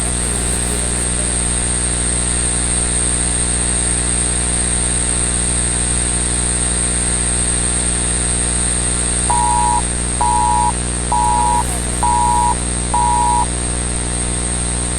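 Steady static hiss with a low hum and a high whine, as on a mock emergency broadcast. About nine seconds in come five short two-tone Emergency Alert System beeps, about one a second.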